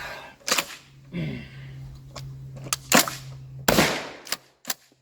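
Axor Arms FMP 12-gauge assisted pump-action shotgun firing a few shots, with the action clacking between them, near the end of a 30-round drum mag dump.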